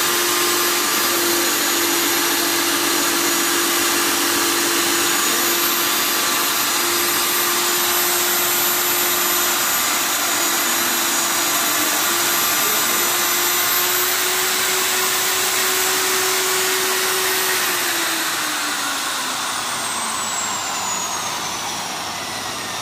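Stand-mounted electric diamond core drill running steadily under load as its water-cooled diamond core bit cuts into a concrete floor, a constant motor whine over loud grinding noise. About 18 seconds in the whine starts to drop slowly in pitch and the sound eases as the motor slows.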